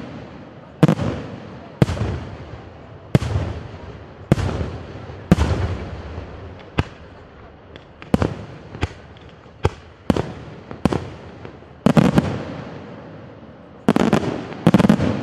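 Aerial firework shells bursting about once a second, each sharp bang trailing off in a long echo. Near the end several shells burst in quick clusters.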